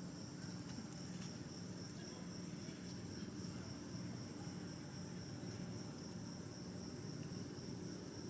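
Insects chirring: a steady, high-pitched drone with no break.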